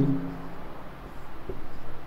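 Marker writing on a whiteboard, with a short click about a second and a half in.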